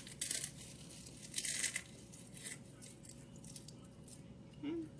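Tortilla chips being crushed by hand: a few crackly crunching bursts, the loudest about a second and a half in, with fainter crumbling after.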